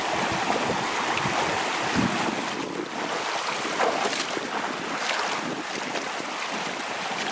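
Steady rush of a shallow river flowing over rocks, a continuous hiss with small splashes.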